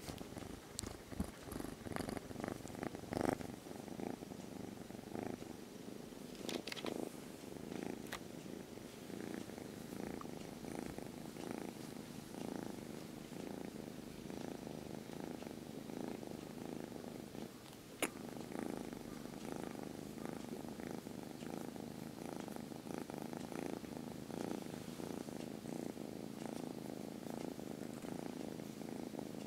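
Kitten purring steadily and close up, a continuous rapid rumble. A few soft clicks and rustles come in the first several seconds, and there is one sharp click about 18 seconds in.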